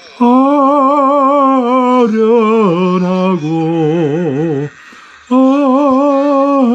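A solo voice singing slow, long held notes with a wide vibrato, the melody stepping down in pitch. It breaks off briefly a little over four and a half seconds in, then comes back on a long high note.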